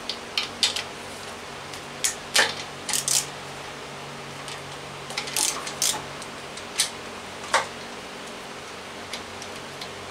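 Scattered sharp metallic clicks and clinks of a ratchet wrench and bolts as a bracket is unbolted from a Nissan Leaf electric motor and gearbox unit. There are about ten irregular clicks, some in quick pairs, over a faint steady hum.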